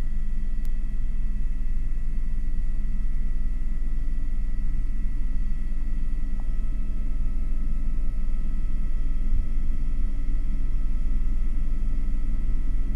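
Cockpit noise of an Airbus H125 (AS350 B3e) helicopter in fast forward flight. A steady low rumble of rotor and turbine runs with several steady thin high tones over it.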